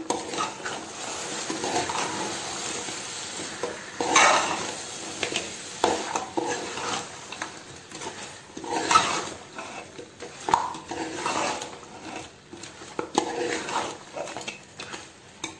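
Stainless steel spoon stirring mutton pieces through thick masala in an aluminium pot, with irregular scrapes and clinks against the pot's side over a low sizzle.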